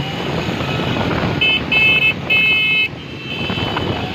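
Vehicle horn honking twice in quick succession about a second and a half in, each blast under a second long. Under it is the steady running noise of vehicle engines and road traffic, with a fainter horn sounding on and off.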